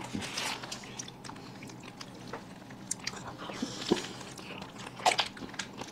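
Close-miked mouth sounds of people eating soft, melting ice cream from cones and a cup: small wet clicks and smacks, with a louder cluster about five seconds in.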